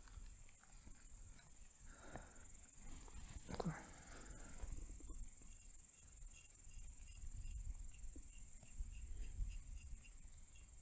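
Steady, high-pitched chirring of insects, with faint scattered clicks and rustles of handling. In the second half a faint chirp repeats about twice a second.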